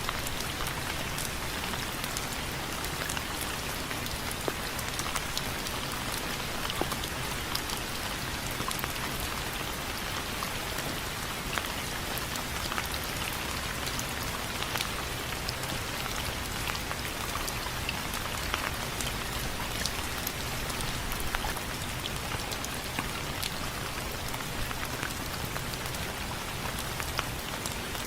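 Steady rain falling on window frames, with a constant hiss and many sharp individual drop ticks throughout.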